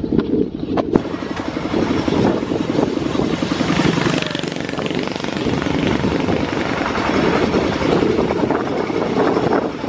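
Tractor engine chugging steadily as it pulls a loaded passenger trailer over a bumpy dirt road, with a rapid pulsing rattle and rushing noise over it.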